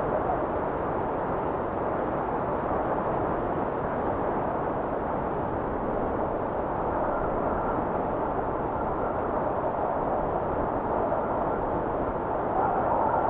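Steady wind, a rushing noise with no tune or rhythm, swelling a little near the end.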